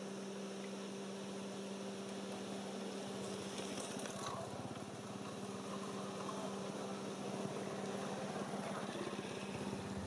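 A steady low mechanical hum holding one pitch, like a motor running, over an even background noise.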